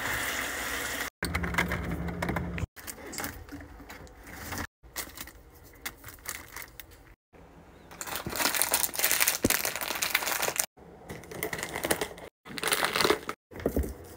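Plastic snack wrappers crinkling as a hand rummages through a pile of fruit-snack packets. The crinkling is loudest from about eight to eleven seconds in, with shorter, quieter handling sounds before and after that stop abruptly at several cuts.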